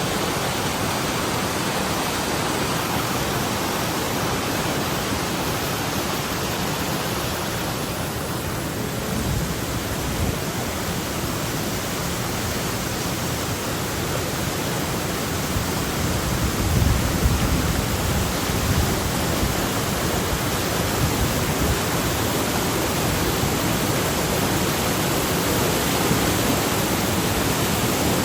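Waterfall rushing: a steady, loud roar of falling water, with a brief low buffeting on the microphone about two-thirds of the way through.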